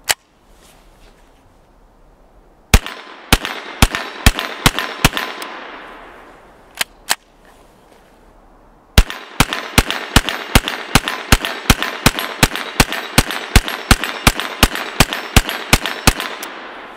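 Ruger PC Carbine firing 9mm rounds semi-automatically from a 50-round SGM drum magazine, each shot followed by a short echo. One shot comes at the start. About three seconds in there is a quick run of about eight shots, then a pause, then two shots, then another pause. From about nine seconds in a steady run of about twenty-five shots follows, roughly three to four a second.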